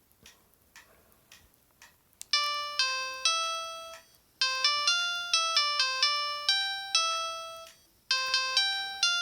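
A Samsung SGH E300 mobile phone playing a ringtone through its small built-in speaker: a synthesized melody of short, decaying notes that starts about two seconds in and breaks off briefly twice. A few faint key clicks come before it.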